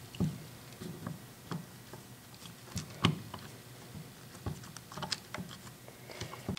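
Light, irregular clicks and taps of small metal parts: a lathe apron's clutch assembly and gear being worked by hand onto their shaft beside the worm, with one sharper click about three seconds in.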